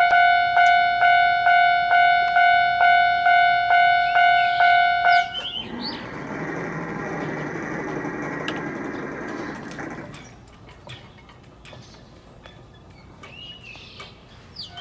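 Japanese railway level-crossing alarm bell ringing its steady electronic ding-ding, about two strikes a second, then cutting off about five seconds in as the crossing is opened. A few seconds of rushing noise follow.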